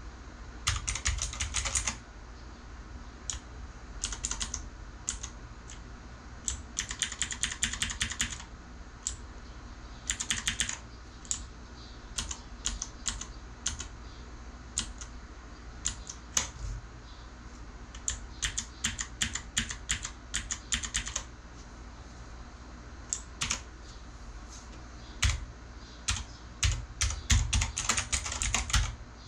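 Typing on a Redragon Kumara K552-2 mechanical keyboard with clicky switches: fast runs of sharp key clicks come in bursts of a second or two, with single keystrokes scattered between them.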